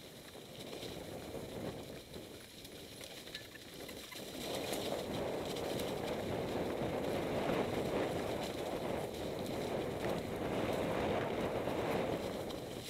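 Mountain bike ridden downhill on a dry, leaf-covered dirt trail: tyres rolling through the leaves and the bike rattling over bumps, with wind rushing on the microphone. It gets louder about four seconds in.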